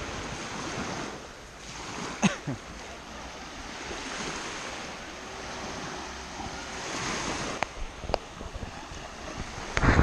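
Small Baltic Sea waves washing up on a sandy shore, swelling and fading every couple of seconds, with wind on the microphone. A short knock about two seconds in.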